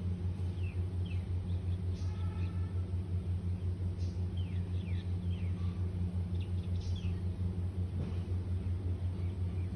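A steady low rumble with a slight rapid pulse, overlaid by short, falling bird chirps every second or so.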